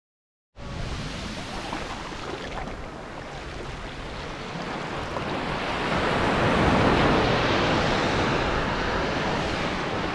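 Small waves breaking and washing up a sandy beach. The sound starts suddenly about half a second in and swells to its loudest a little past the middle.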